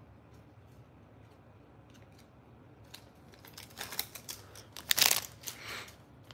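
Foil wrapper of a Panini Prizm trading-card pack crinkling as it is handled, in a few short crackly bursts starting about halfway through and loudest near the five-second mark. Before that, only faint clicks of cards being handled.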